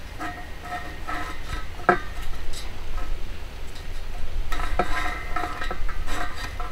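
Metal clinking and jingling from a bullock team's yoke tackle as the plough is unhitched and rigged on the yoke for transport. Short, lightly ringing clinks come irregularly, with a sharp knock about two seconds in and busier jingling from about four and a half seconds.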